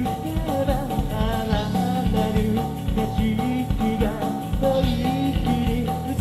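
Japanese rock band playing a song: a male singer over electric guitars, bass and a steady drum beat.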